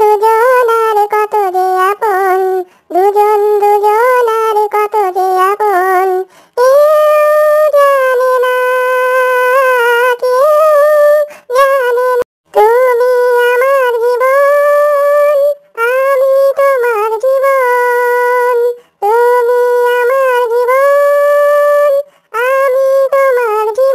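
Singing in a high, pitch-shifted cartoon voice without accompaniment, in phrases with held notes and short silent breaks between them.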